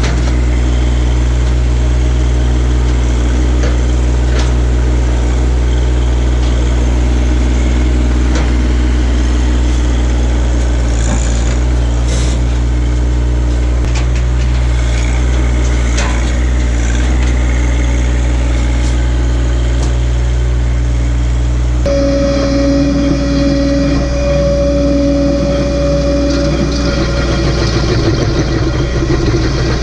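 John Deere tractor engine running steadily, driving a stump grinder, with scattered sharp clicks over the hum. About 22 seconds in, the sound changes suddenly and a steady whine comes in.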